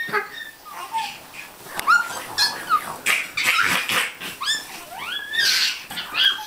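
Babies' high-pitched squeals and shrieks of play, many short rising-and-falling cries in quick runs.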